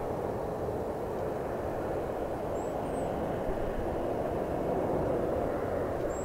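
Steady rumble of jet aircraft noise across an airport apron, even in level throughout.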